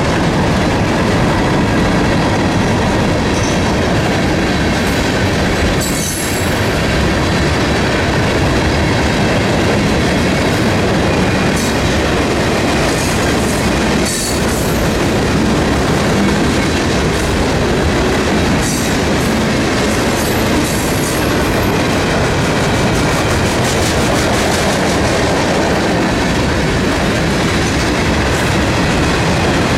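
Freight cars of a long mixed freight train rolling past at speed: a steady clatter of steel wheels on rail, with clickety-clack over the rail joints and a few brief high squeals from the wheels.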